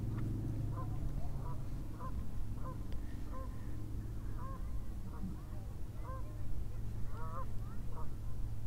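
Geese honking in a run of short calls, several overlapping about seven seconds in, over a steady low rumble.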